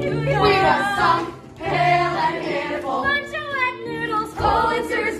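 A group of voices singing together in chorus, a musical-theatre ensemble number.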